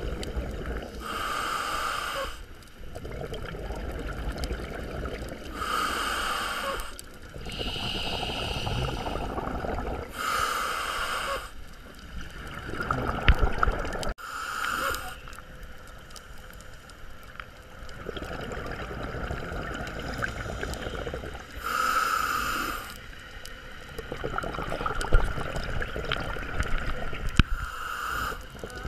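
Scuba diver breathing through a regulator underwater. There are six short hissing inhales, roughly every four to five seconds with one longer pause in the middle, and each is followed by a longer gurgling rush of exhaled bubbles.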